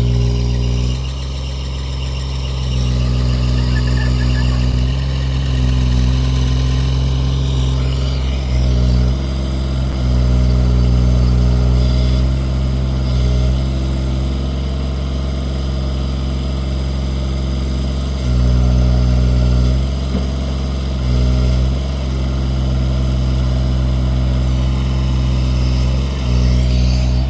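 A heavy engine running steadily at a low, even drone. Its level steps up and down every few seconds as the load changes, most clearly around 9, 18 and 26 seconds in.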